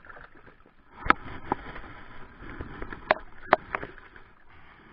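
Water splashing and lapping against the hull of a small wooden outrigger boat, with a handful of sharp knocks as gear is handled in the boat.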